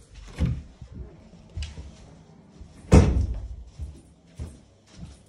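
Panelled internal double doors being handled and shut, with a loud thud about three seconds in among lighter knocks and steps.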